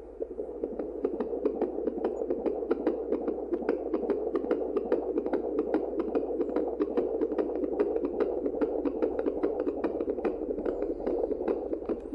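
A baby's heartbeat: a fast, even run of beats over a steady whooshing noise and a low hum.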